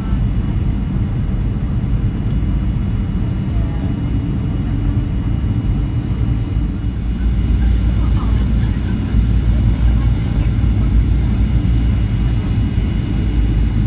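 Steady low rumble of an airliner's cabin during final approach, the engines and rushing air heard from a window seat, growing a little louder about halfway through.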